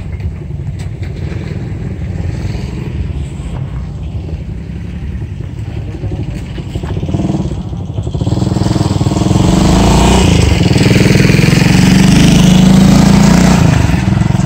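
A motorcycle tricycle engine passing along the road, growing louder from about eight seconds in and easing off near the end, over a steady low rumble.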